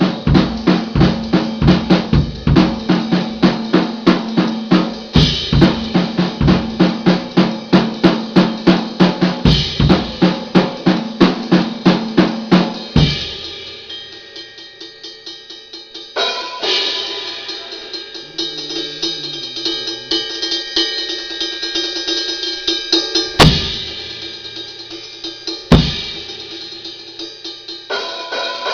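Drum kit played fast: a dense run of rapid, even strokes on the drums for about the first half. Then the low drums drop away into quieter, steady cymbal wash, broken by two sharp loud hits near the end.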